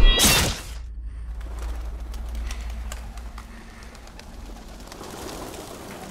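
A loud whoosh in the first half-second as a sword swings down, cut off sharply into a hush. Then a low steady drone under pigeons cooing and their wings fluttering.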